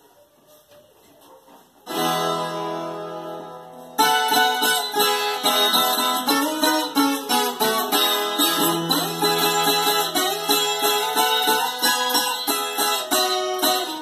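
Viola caipira, the Brazilian ten-string guitar, being played. Faint for the first two seconds, then a strummed chord rings out and fades, and from about four seconds in a fast run of plucked notes continues.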